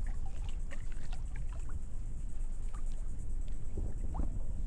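Small waves lapping at the edge of a boat ramp, with small scattered ticks and splashes over a steady low rumble.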